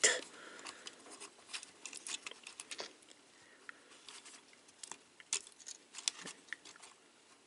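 A plastic Transformers Siege Springer action figure being handled and posed by hand: scattered small plastic clicks and faint rustles, with a couple of sharper clicks in the second half.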